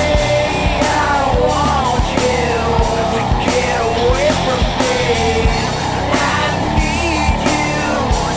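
Rock music with singing, loud drums and electric guitar.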